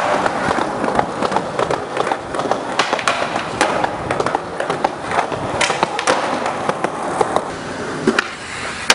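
Skateboard wheels rolling on hard ground with a steady rumble, broken by several sharp clacks of the board striking the ground.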